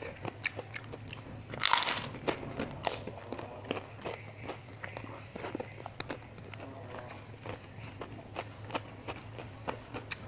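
Close-miked eating: a person biting and chewing crunchy food, fried rice with onion crackers, with many small crackles and a louder crunch about two seconds in.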